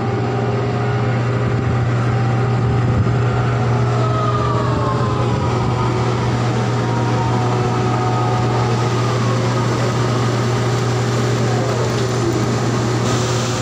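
Deep, steady drone of heavy diesel machinery from coal-loading work. Steady whining tones sit above it, and some of them slide down in pitch in the middle, as a winch or engine changes speed.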